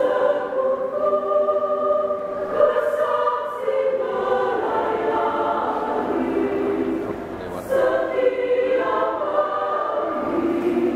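Women's choir singing a hymn in several-part harmony, holding chords that change every second or two, with a short breath between phrases about seven and a half seconds in.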